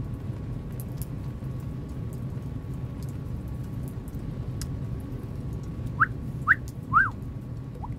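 A person whistling three short upward notes about six to seven seconds in, the third rising and then falling, over a steady low rumble.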